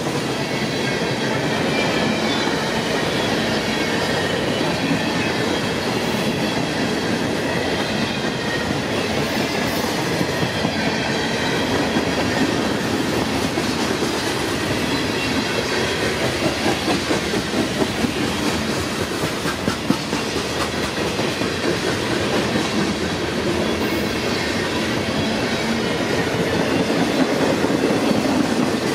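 CSX manifest freight train's cars rolling steadily past, a continuous rumble and clatter of steel wheels on rail.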